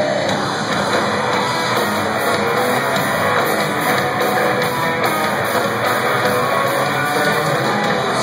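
Live rock trio playing an instrumental passage through the arena's PA: electric guitar, bass and drums, loud and steady, heard from high in the stands.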